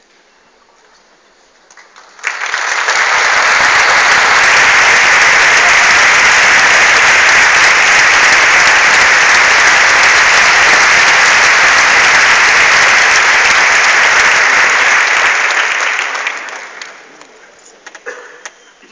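Concert-hall audience applauding loudly: the clapping starts suddenly about two seconds in, holds steady, and dies away a couple of seconds before the end.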